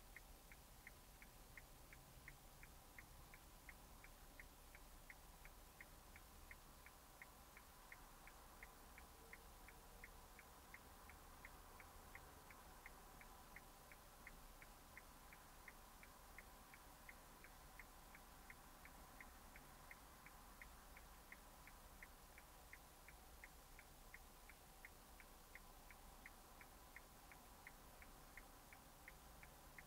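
Faint, steady ticking at about two ticks a second over a faint hum: the clicking of a stationary car's turn-signal or hazard-light relay, heard inside the car.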